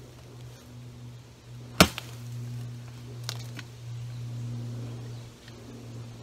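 A steel survival shovel's sharpened blade edge chops into a fallen log once, a single sharp hit about two seconds in, followed by a couple of fainter clicks. A steady low hum runs underneath.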